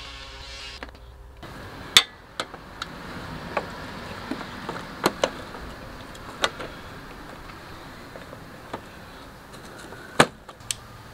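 Hard plastic fairing parts being handled and set into place inside a motorcycle fairing: scattered sharp clicks and knocks at uneven intervals, the loudest about two seconds in and again near the end.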